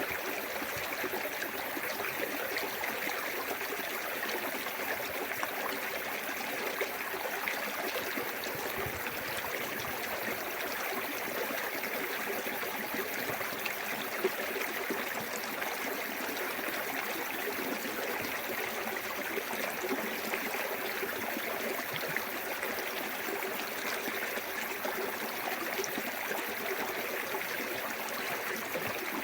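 Small waterfall in a clear woodland stream, the water running and splashing steadily over rocks.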